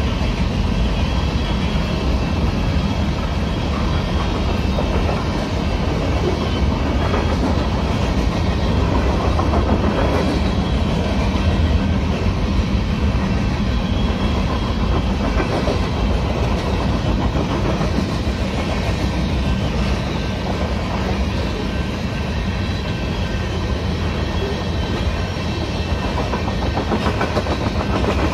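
Freight train cars rolling steadily past a level crossing: covered hoppers and then tank cars, a continuous rumble with the wheels clicking over the rail joints.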